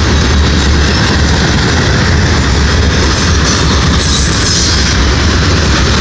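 Freight cars of a CSX train rolling past: a loud, steady rumble and rattle of steel wheels on the rails, with a brief faint high squeal about four seconds in.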